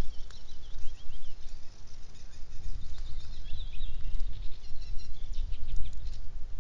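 Small birds chirping in quick series of short high notes over an uneven low rumble of wind on the microphone.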